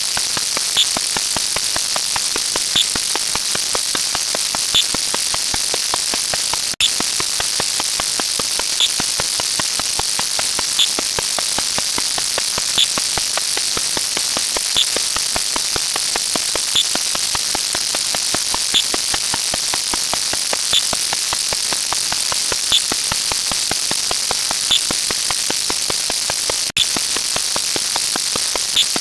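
A dense, rapid stream of overlapping clicks that blur into a steady static-like hiss, the per-number sound effects of a fast-running counter. A brighter blip recurs about every two seconds, and the stream cuts out briefly about seven seconds in and again near the end.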